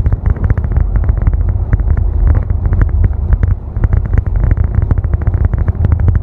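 Bus driving along a road, heard from the front of the cabin: a heavy low engine and road rumble with frequent sharp rattles and knocks from the body and fittings.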